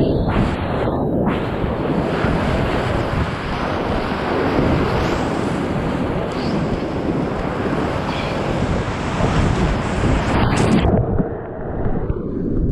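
Loud rush of whitewater rapids heard from a kayak running them, with water splashing around the boat and wind and spray buffeting the microphone. About eleven seconds in the sound turns suddenly muffled and dull.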